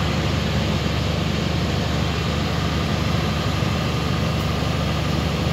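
Engine idling steadily, a low even hum, most likely the farm tractor left running while its crop sprayer washes out.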